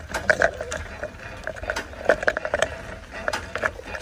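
Bicycle rattling and clicking as it rides over a bumpy dirt track: a quick, irregular clatter, with wind rumbling on the microphone.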